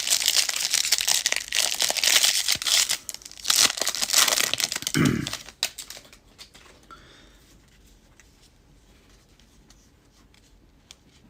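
Wrapper of a trading card pack crinkling and tearing as it is opened, then dropping off after about five and a half seconds to faint scattered ticks as the cards are handled.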